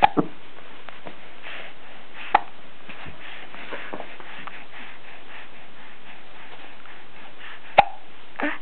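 A small child hiccuping: a few short, sharp hiccups at uneven gaps, a quick pair at the start, one about two seconds in and another near the end, followed by a softer voiced one.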